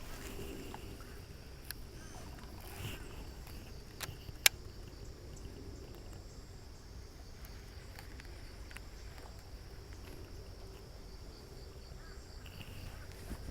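Quiet outdoor background noise with a faint steady high-pitched hum, broken by two sharp clicks about four seconds in.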